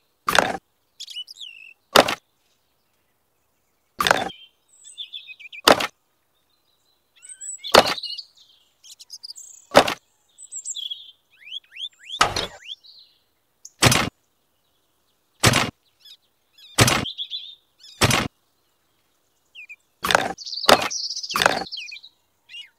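Sharp clicks and clacks of small toy construction pieces, plastic tubes and miniature metal rebar cages, being picked up and set down by hand, one every second or two. Faint bird chirping sounds between them.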